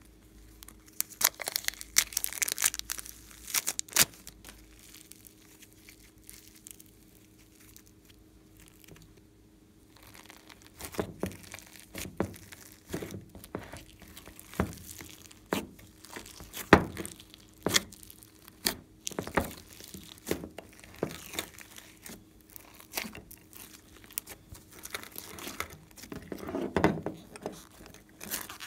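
A plastic zip bag of foam clay crinkling as it is handled and opened, then, after a quiet pause, sticky pops and squelches about once a second as hands press and knead a large mass of slime mixed with clay, glitter and foam, getting busier near the end.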